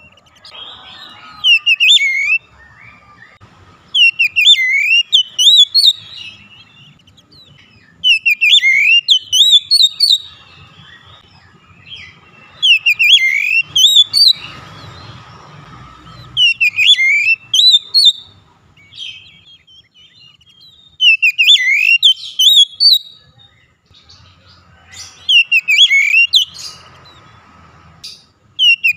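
Oriental magpie-robin (kacer) singing loud phrases of quick sweeping whistled notes. Each phrase lasts about two seconds, and they repeat roughly every four seconds with short quiet gaps between them.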